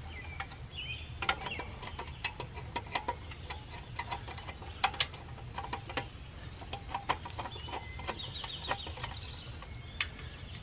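Ratchet wrench clicking in short, irregular runs as the shroud bolts are backed out of a small Briggs & Stratton engine.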